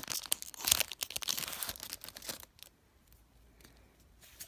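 Foil wrapper of a Pokémon card booster pack crinkling and tearing as it is pulled open, for about two and a half seconds, then only a few faint taps.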